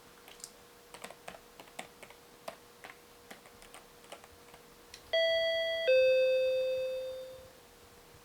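A run of light, irregular clicks, then an electronic door chime about five seconds in: a two-note ding-dong, the higher note cut short by the lower one, which rings on and fades out over about two seconds.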